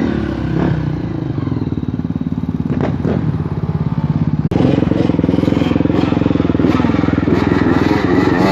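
Dirt bike engine running hard and revving as the bike climbs a steep dirt bank.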